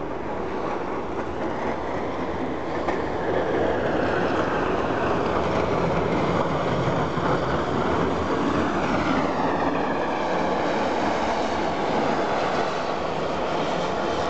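Snow plow truck driving past, a heavy, steady rushing rumble that grows louder over the first few seconds, with a falling whine about nine seconds in as it goes by.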